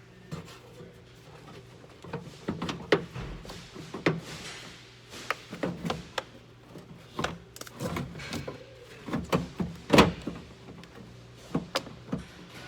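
Irregular knocks, clicks and clunks of hands working the inner door panel and parts inside a 2016 Hyundai Tucson rear door, the loudest knock about ten seconds in.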